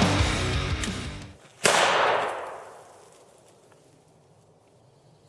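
Background rock music fading out, then a single pistol shot about a second and a half in, its echo dying away over about a second. Another shot lands right at the end.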